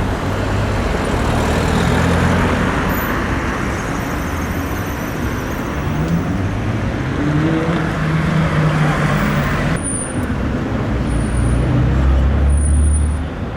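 Pesa tram in motion: the low rumble of its running gear, with the traction motors' whine rising in pitch as it picks up speed about halfway through.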